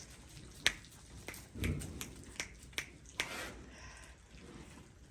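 A few sharp clicks and knocks spread out at irregular intervals, the loudest under a second in. There is a low dull thud in between and a short rustle about three seconds in.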